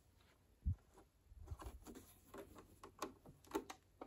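Faint handling noises of a plastic projector casing shifting in foam packaging: a soft low thump less than a second in, then scattered light clicks and rubbing.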